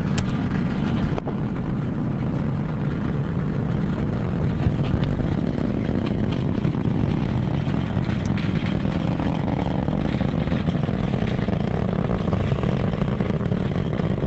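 Steady low rumble of the Delta IV Heavy's three RS-68 rocket engines at full thrust during ascent.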